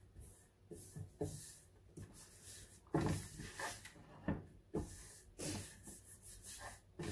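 Hands rubbing and pressing sticker paper onto a painted wooden table top to smooth out air bubbles: irregular swishes of skin and fingernail on paper, with a few light knocks on the wood.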